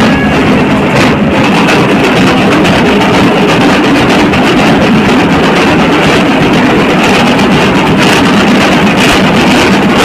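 Loud, dense group drumming: large frame drums and a barrel drum beaten hard with sticks, going on without a break, the strokes running together into a heavy, distorted din.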